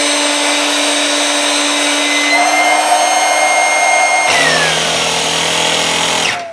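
Electric 12V two-stage inflatable air pump running: the motor and centrifugal fan stage whine steadily, the pitch edging up slightly about two seconds in. About four seconds in the pump switches over to its reciprocating piston stage, the motor tone drops and a low rapid throb joins in as the current draw rises. It is switched off near the end and winds down.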